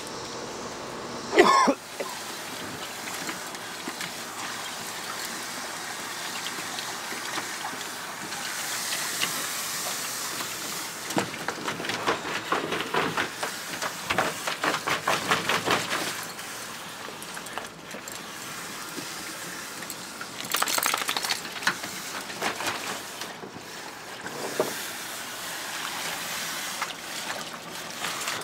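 Water splashing in a plastic kiddie pool as a dog paws and plays in it, with a garden hose running into the pool; the splashing comes in quick, rapid runs in the middle and again later. Near the start, one short, loud yelp from a dog.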